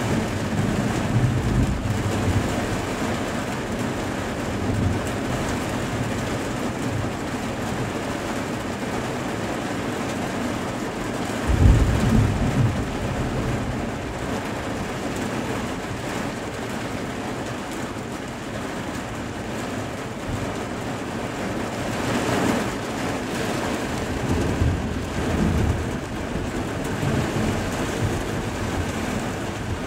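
Steady rain with rumbles of thunder from a thunderstorm; the loudest roll of thunder comes about twelve seconds in, with smaller rumbles near the start and about two-thirds of the way through.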